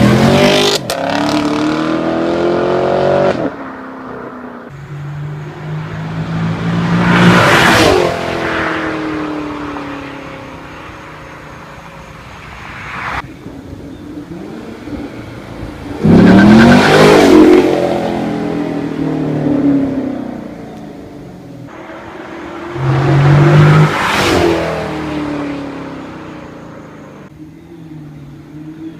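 Stock V8 muscle car accelerating hard past, four times: each pass the engine and exhaust note climbs and swells to a peak, then drops in pitch and fades as the car goes by.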